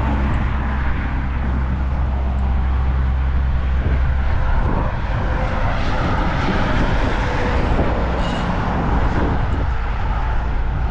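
Steady roar of road traffic and wind, with a deep low rumble that is strongest for the first four seconds and then eases.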